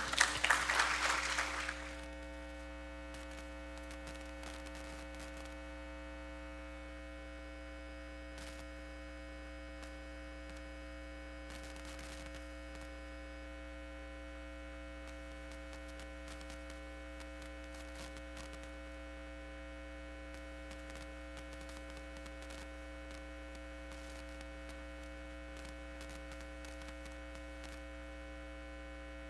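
Steady electrical mains hum with a buzz of several constant tones, picked up by the open microphones and sound system. A short noisy burst dies away about two seconds in.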